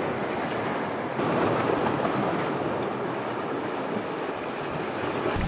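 Sea waves washing against shoreline rocks, with some wind on the microphone: a steady rushing, a little louder from about a second in.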